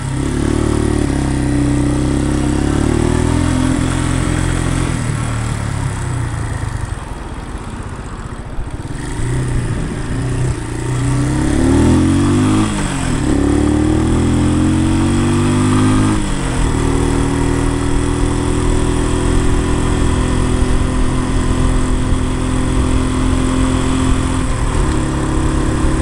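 Keeway CR152 single-cylinder motorcycle engine pulling away and accelerating through the gears, its note climbing and dropping back at each shift about halfway through, then holding a steady pitch while cruising, with wind noise over it.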